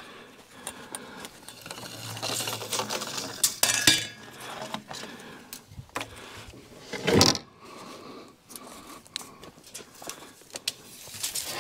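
Handling noise: scattered light clicks and knocks with a stretch of scraping, and one louder sound about seven seconds in.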